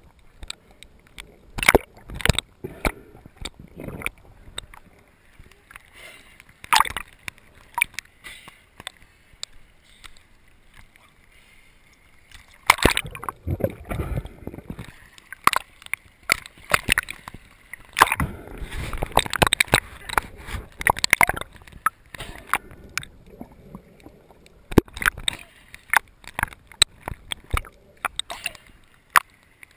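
Water and bubbles heard through an underwater camera: irregular clicks and pops, with two longer stretches of bubbling and sloshing in the middle.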